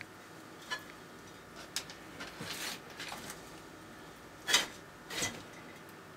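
Dumeril's monitor lizard eating: scattered sharp clicks and short crunches from its jaws as it chews and swallows its food, the two loudest about four and a half and five seconds in.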